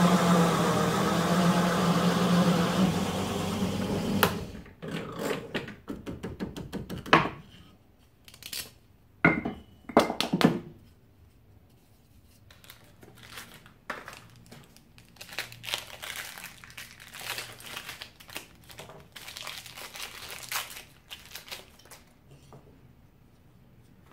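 Drill press running with a hole saw cutting through an MDF blank for about four seconds, then switched off and winding down. After that, a few sharp knocks as the cut piece is handled, and scattered rustling and clicking near the end.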